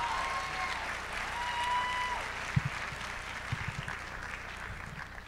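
Large audience applauding, with a long shout from one voice rising above the clapping about a second and a half in and a sharp thump at about two and a half seconds. The applause tapers off toward the end.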